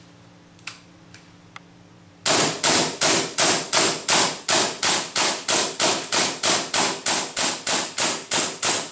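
Green-gas blowback airsoft pistol with a heavy steel slide (JRAK ATEi-licensed Costa signature prototype) firing about twenty shots in steady semi-auto succession, roughly three a second, each a sharp crack of the gas release with the slide cycling. A few faint clicks come before the first shot.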